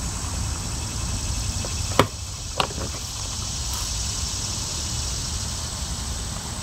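Two sharp plastic clicks about two seconds in, half a second apart, as a plastic funnel is pushed into a small engine's oil fill neck. Insects chirr steadily in a high tone over a low rumble.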